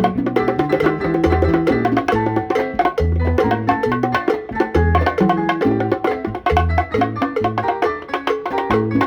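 Instrumental music: a bass line of held low notes under quick melodic notes and frequent percussion hits.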